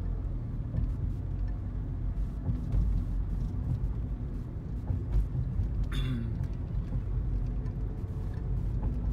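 A car driving, heard from inside the cabin: a steady low rumble of road and engine noise. A short pitched sound breaks through about six seconds in.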